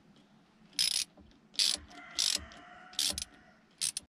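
Small socket ratchet clicking in five short bursts as the terminal nuts on a new starter solenoid are tightened.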